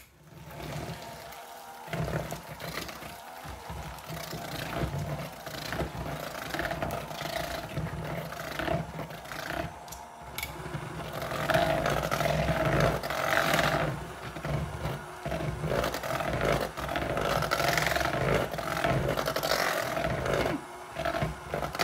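KitchenAid electric hand mixer running with its beaters in thick strawberry icing, churning and scraping in the bowl. It gets louder from about halfway through.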